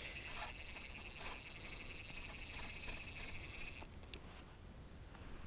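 Spinning reel's drag buzzing as a large catfish pulls line off against it; the buzz stops suddenly about four seconds in.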